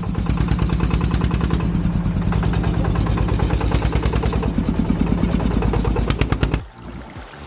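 Thai farm truck's single-cylinder diesel engine chugging with a rapid, even putt-putt as it drives up and passes close by, then cutting off suddenly near the end.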